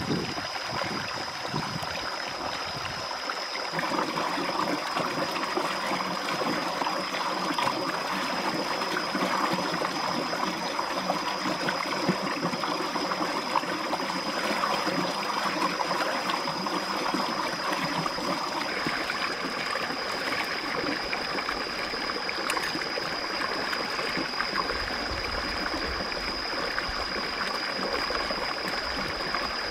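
Stream running over rocks, with splashing as a plucked duck is scrubbed by hand in the water; a steady high-pitched tone runs through it all.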